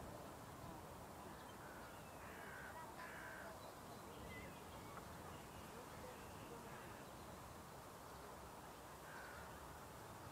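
Faint bird calls over quiet outdoor background noise: a few short calls about two to three seconds in and again near the end.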